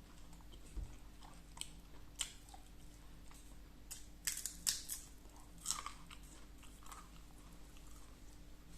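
A person chewing and biting food close to the microphone, with short crisp crunches and mouth clicks that come thickest about halfway through.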